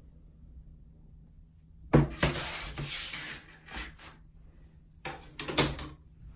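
Objects being handled and rubbed: a knock, then a scraping rub about a second and a half long, and a few more knocks and rubs near the end, over a low steady hum.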